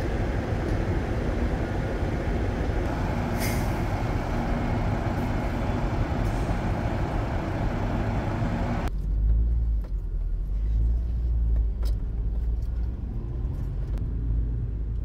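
Vehicle noise at a ferry terminal, with a short, sharp air-brake hiss about three and a half seconds in. After a cut about nine seconds in, it changes abruptly to the low rumble of a car driving on the road.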